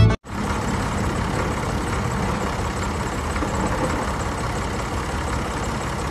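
Steady, even engine-like running sound with the miniature model tractor in motion, pulling its loaded trolley. It starts just after the opening.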